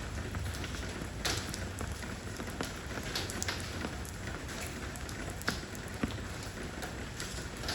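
Steady rain falling on stepping stones, an even hiss dotted with many irregular, louder drips and splats of individual drops.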